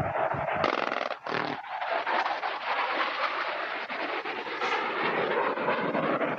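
Panavia Tornado jet noise over a firing range, with a sudden harsh, rasping burst less than a second in and a second short burst just after: the jet's cannon firing on a strafing pass. The jet noise carries on steadily afterwards.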